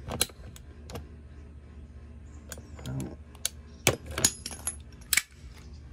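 Kobalt PEX cutter working through the PEX water line behind a brass hose bib: a scatter of sharp clicks and clinks, the loudest about four and five seconds in.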